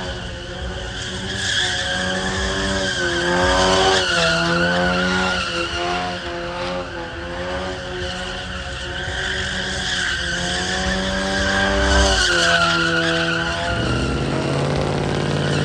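A car spinning donuts: its tyres squeal without a break while the engine revs rise and fall over and over. Near the end the revs drop to a lower, steadier note.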